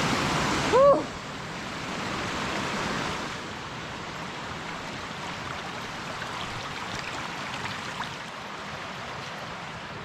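Creek water rushing, loud for the first second, then dropping to a fainter steady rush. A breathy 'whew' about a second in.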